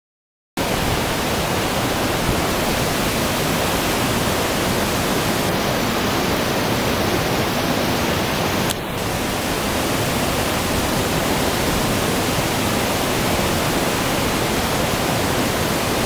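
Steady rushing of a waterfall cascading over rock into pools, starting about half a second in.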